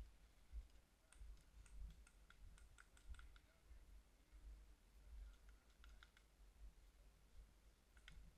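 Faint, sharp clicks in two irregular clusters, one about a second in and another around five seconds in, over a low rumble.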